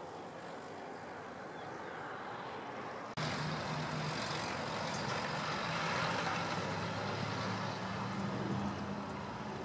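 Distant jet noise of an Airbus A340 on the runway. About three seconds in it cuts abruptly to the louder, steady jet noise of an Airbus A340-600 on final approach, its four Rolls-Royce Trent 500 turbofans giving a low hum under a broad rushing hiss that swells and then eases.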